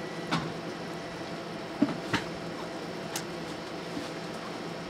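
A few light clicks and taps of a utensil against a slow cooker's crock and a plate during basting, over a steady background hum.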